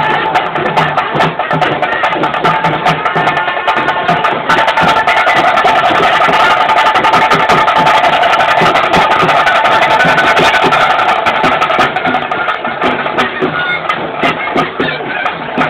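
Loud traditional procession music: drums and clattering percussion beating a dense, fast rhythm, with a steady held tone over it through the middle.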